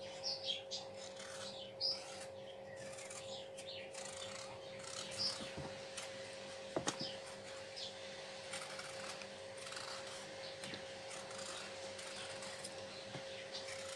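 Faint scraping and small clicks of a kitchen knife peeling the skin off raw potatoes by hand, over a steady hum.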